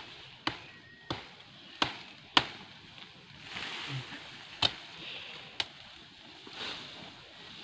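Machete chopping at cassava stems, about six sharp chops at irregular intervals. The stalks are being cut back at the start of the cassava harvest.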